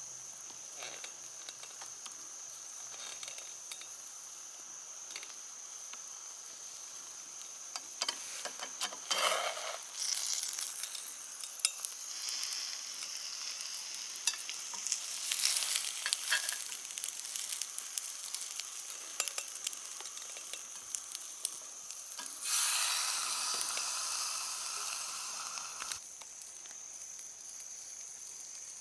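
Food frying in a pan, with sizzling and crackling and the scrape of stirring. About 22 seconds in a louder, dense sizzle rises suddenly, lasts about three seconds, then cuts off.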